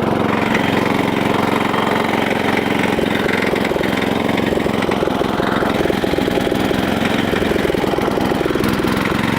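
Small lawn tractor engine running steadily through a tin-can exhaust. It is behaving oddly, which the owner puts down to a kill wire bouncing around, or maybe a blown head gasket.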